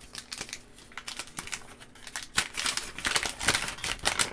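A folded paper instruction sheet being unfolded and handled, crinkling and rustling. The rustling gets busier about halfway through.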